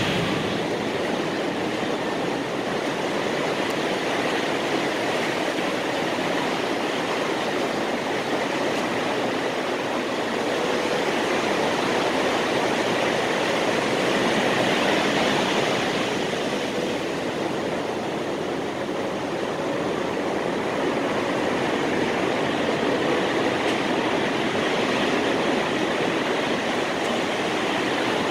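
Steady rushing wash of surf on a sandy beach, swelling a little about halfway through.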